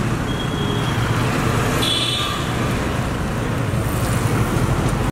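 Steady street traffic noise with a low rumble, and a short horn-like tone about two seconds in.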